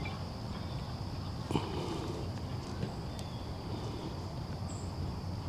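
Steady high-pitched chirring of insects, with a low background rumble and a faint click about a second and a half in.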